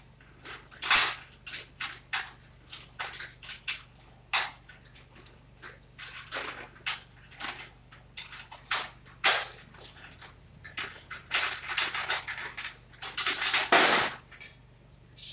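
Irregular clanks, clicks and scrapes of tools and metal door hardware being handled, with one louder knock about a second in and a longer stretch of scraping rattle near the end.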